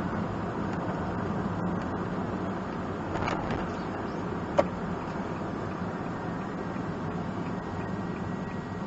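Kei one-box van driving at a steady speed, heard inside the cabin: even engine and tyre noise with a steady low hum. One short, sharp click about halfway through.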